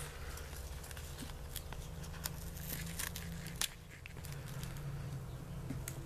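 Light rustling and scattered small clicks from handling the packaging and plant, over a steady low hum, with one sharper click a little past halfway.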